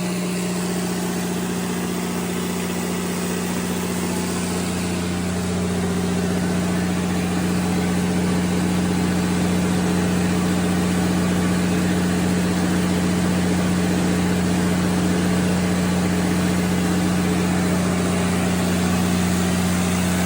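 Cummins NTA855-G5 inline-six turbocharged diesel engine of a 400 kW generator set running steadily at its 1800 rpm governed speed, a steady low drone that gets slightly louder about six seconds in.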